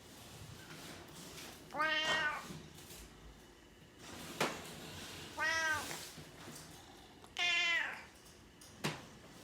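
Domestic cat meowing three times, each call about half a second long and rising then falling in pitch. Two sharp clicks come between the calls.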